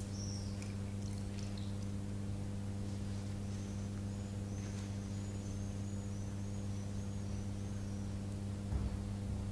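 A thin stream of water poured from a small glass cruet at the altar, a faint high trickle from about three and a half seconds in, for several seconds. It sits over a steady low hum.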